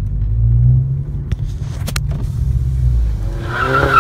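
Steady low rumble of a car's engine and road noise, heard from inside the cabin. There are a couple of sharp clicks around the middle and a short, high pitched whine near the end.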